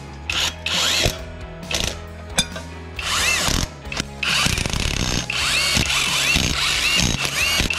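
Cordless impact wrench (rattle gun) running in flywheel bolts in several short bursts of rapid hammering. The motor's whine rises and falls with each burst. The bolts are being snugged down onto the crankshaft before they are torqued to spec.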